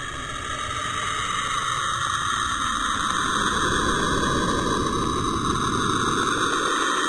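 Saturn's radio emissions, recorded by the Cassini spacecraft and converted to audio: a dense rushing, hissing noise with a low rumble beneath. It grows louder over the first few seconds, then holds steady.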